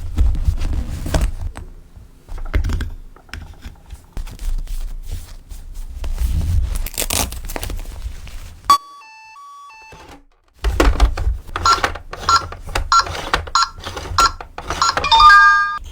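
Small plastic toy pieces clicking and knocking as they are handled. A short run of electronic beeps sounds about nine seconds in, and more beeping tones come near the end.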